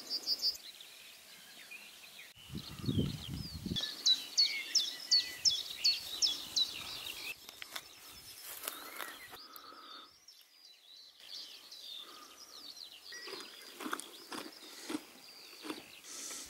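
Birds singing over open pasture, with a run of about eight quick, sharp high chirps from about four to seven seconds in and other bird calls throughout. A brief low sound about three seconds in, and soft close-by clicks and rustles near the end.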